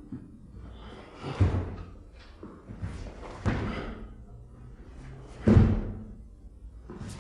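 Heavy thuds about every two seconds, each trailing off, from a karateka's feet striking the floor during the kata Jion.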